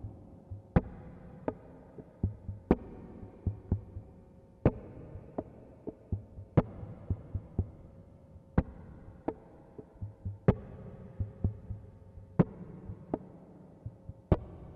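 Slow heartbeat-like rhythm of sharp clicks, often in pairs, about every two seconds over soft low thumps, leading into the music.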